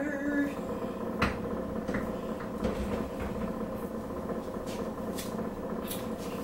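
A steady machine hum, with a few short clicks and taps of jars and seasoning containers being handled on a kitchen counter.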